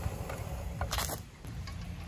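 Portable butane camping stove's control knob turned off with a click, then a short sharp clatter about a second in as the small camping kettle is handled, over a steady low rumble.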